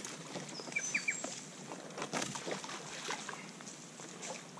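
Irregular rustling and knocking of someone clambering down over branches at the water's edge, with light water sounds. A few short bird chirps come about a second in.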